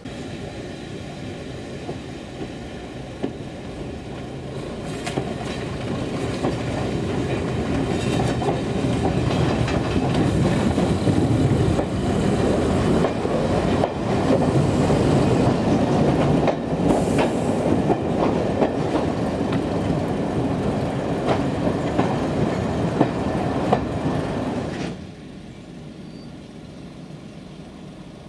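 L&YR Class 27 0-6-0 steam locomotive No. 52322 and its train running along the line: a dense rumble with the clickety-clack of wheels over rail joints and scattered clicks, growing louder over the first dozen seconds. About 25 seconds in it drops sharply to a quiet steady background.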